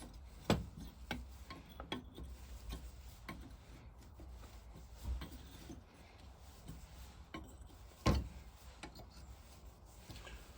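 Scattered light clicks and taps of hand tools working on the seized fittings of a vintage Lister engine's vaporiser, with a louder knock about half a second in and another around eight seconds in.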